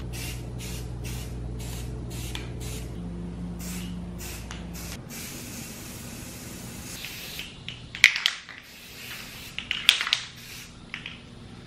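Aerosol can of spray primer: the mixing ball rattles in quick, even clicks as the can is shaken for the first few seconds. Then comes a steady spray hiss, and two loud short bursts of spray near the end as primer goes onto the plastic print.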